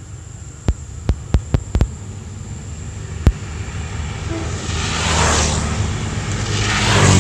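Road vehicles passing close by: two swells of tyre and engine noise, rising and fading about five seconds in and again near the end. Before them comes a run of six sharp clicks in the first three seconds.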